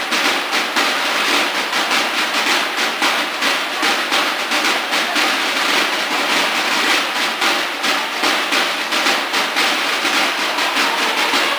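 Snare drums of a Mexican school banda de guerra playing a steady march cadence, drums alone without bugles.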